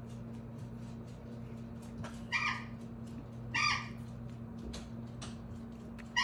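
Abyssinian cat giving three short, squeaky mews while the two cats groom and tussle, over a quick, even rasp of licking.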